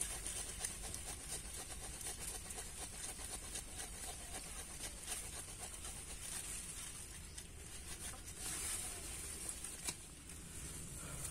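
Machete blade digging into soil around serut roots: a run of small irregular scrapes and taps as it cuts through earth and root, with one sharper knock near the end.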